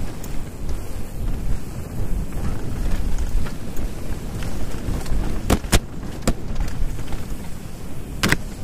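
Wind buffeting the microphone and a mountain bike's tyres rolling over a loose dirt trail at speed, a steady low rumble. Sharp knocks cut through it, two close together a little past halfway and a louder one near the end.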